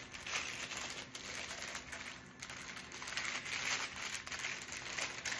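Paper wrapper of a sterile glove pack being handled and unfolded, with continuous crinkling and rustling.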